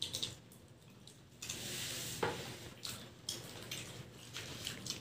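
People eating zinger burgers: chewing and mouth noises with scattered small clicks, and a slurp of soft drink through a straw about a second and a half in.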